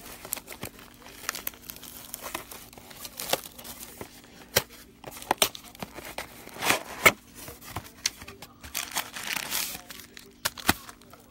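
Plastic shrink wrap and card packaging crinkling and tearing as a sealed box of trading cards is unwrapped and opened, with irregular sharp crackles and rustles throughout.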